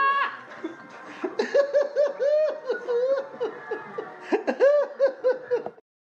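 High-pitched laughter: a run of quick, arching giggling syllables that cuts off abruptly near the end.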